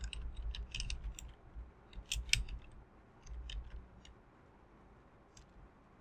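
Computer keyboard typing: a run of irregular keystroke clicks that thins out about four seconds in.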